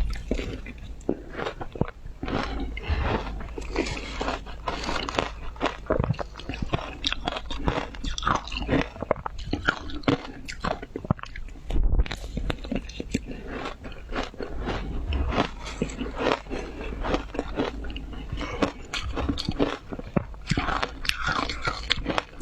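A person biting and chewing hard frozen ice: a dense, irregular run of crunches with no pause.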